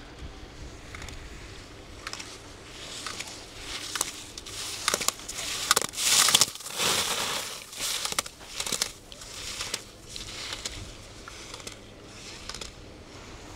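Ski edges scraping and chattering across hard snow as a skier passes close by, building to its loudest about six seconds in and fading away, over a low wind rumble on the microphone.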